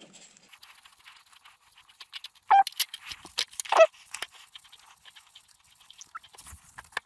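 Small metallic clicks and rattles of bolts and hand tools being handled while mount bolts are fitted, with two short high squeals about two and a half and four seconds in.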